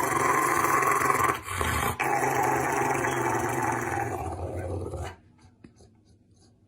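Dog growling steadily for about five seconds, dipping briefly around the second second, then stopping suddenly.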